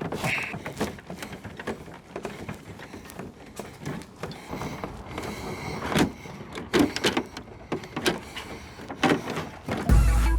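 Irregular knocks, bumps and scraping of an air-conditioner unit being handled and moved. Music starts near the end.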